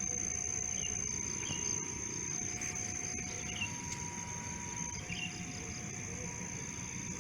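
Crickets chirring in a steady high drone, with short bird chirps and a faint, long two-note tone alternating over a low rumble.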